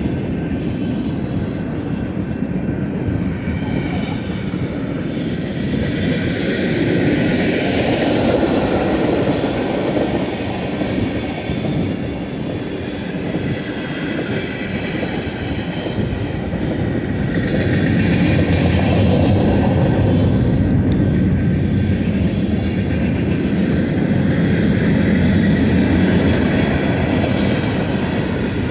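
Freight cars of a BNSF manifest train (boxcars, tank cars, hoppers) rolling past: a steady rumble of wheels on rail, with a faint high ringing that swells a few seconds in and again past the middle.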